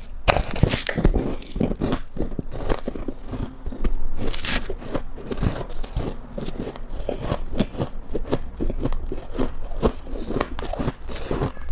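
Close-up crunching and chewing of a mouthful of powdery freezer frost, a rapid run of crisp crunches throughout, loudest about four seconds in.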